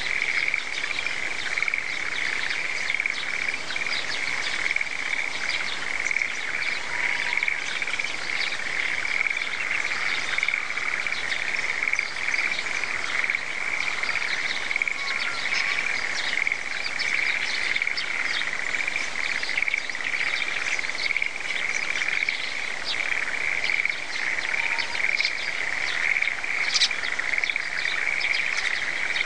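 Frogs in freshly planted rice paddies calling in a dense, continuous chorus, with many short chirps scattered over it.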